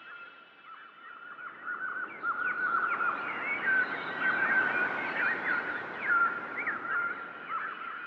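Many small birds chirping in quick, overlapping calls over a held steady tone, with a rushing hiss that swells in the middle and fades near the end.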